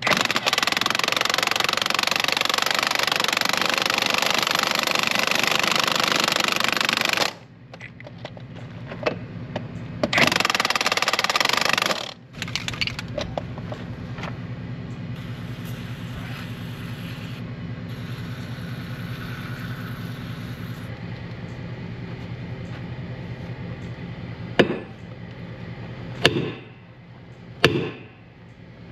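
A cordless impact wrench hammers for about seven seconds, then again for about two seconds, driving the pusher bolts on a John Deere 4050's rear wheel hub to break the seized hub wedge free. A steady engine hum follows. Near the end, a sledgehammer strikes the end of the steel rear axle three times with sharp metallic blows, a way to jar the stuck wedge loose.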